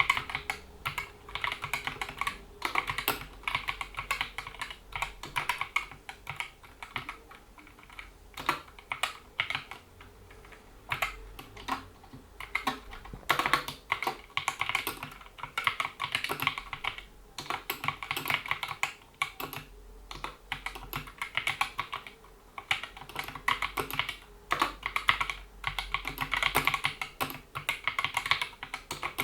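Typing on a GK61 60% mechanical keyboard with Gateron optical linear switches, PBT keycaps and rubber dampening rings: fast, continuous keystroke clicks in bursts with brief pauses between them.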